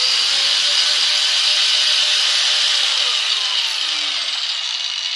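Black & Decker angle grinder running freshly repaired with a new armature bearing, a loud steady whir. From about three seconds in its pitch falls as it winds down. It sounds better than it has in a year or two.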